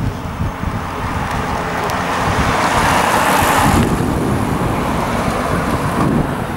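Road-vehicle noise with wind buffeting the microphone. A passing car's rushing tyre and engine sound swells, then cuts off abruptly about four seconds in.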